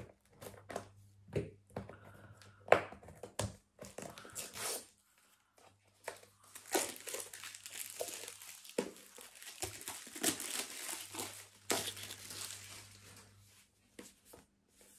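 Scissors snipping at the seal of a small cardboard wireless-microphone box, a few sharp clicks, then a long stretch of crinkling and tearing as the sealed wrapping is pulled off the box.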